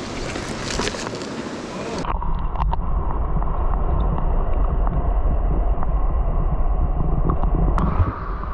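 Rushing mountain-stream water. About two seconds in it cuts abruptly to a duller, deeper rumble, with wind buffeting the microphone.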